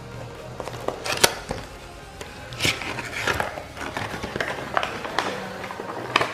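Cardboard packaging being opened and handled by hand: scattered clicks, taps and short scrapes and rustles, with the sharpest click about a second in. Faint background music plays underneath.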